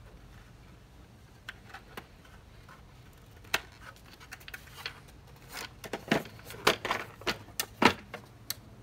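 Hard plastic clicks and knocks as a Hayward pump control faceplate is handled and fitted onto its wall mount. A few scattered clicks at first, then a quick run of knocks over the last three seconds.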